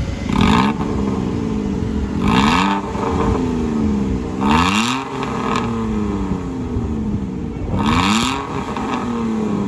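Datsun redi-GO's 800 cc three-cylinder engine revved four times through an AZ Performance Valvetronic exhaust. Each rev rises sharply, peaks with a louder exhaust rush, and falls back slowly.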